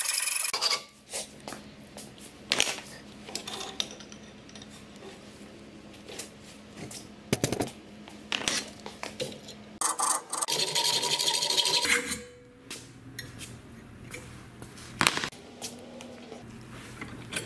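A hacksaw's last strokes through a steel tube right at the start, then scattered sharp knocks and clanks as the cut tube and tools are handled at a bench vise. About ten seconds in, a steady rasping scrape lasts for about two seconds.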